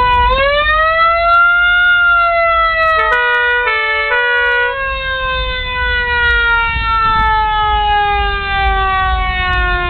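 American Federal Q mechanical siren on a Renault Dodge fire engine, rising to its peak pitch about two seconds in, then winding slowly down in pitch as the rotor coasts. About three seconds in, a second tone joins for a second and a half, jumping between a few fixed pitches.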